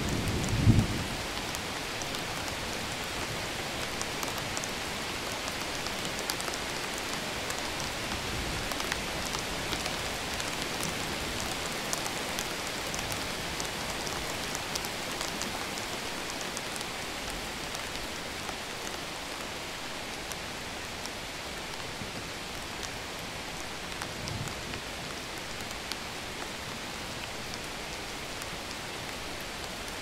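Steady rain falling, with fine patter of drops, as part of a thunderstorm recording. A low rumble of thunder dies away about a second in, and a fainter rumble comes about 24 seconds in.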